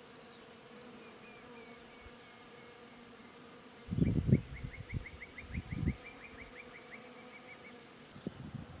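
Honeybees buzzing in a steady hum. A few low knocks come about four and six seconds in, and a quick run of short high chirps sounds from about four seconds in until near the end.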